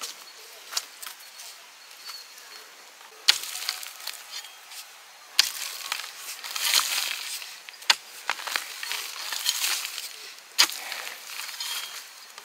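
Four sharp strikes, two to three seconds apart, each followed by a brief crunching rustle.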